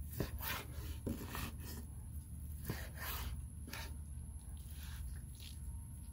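Knife slicing through a charred, crusty skirt steak onto a wooden cutting board: a series of short scraping cuts, irregularly spaced.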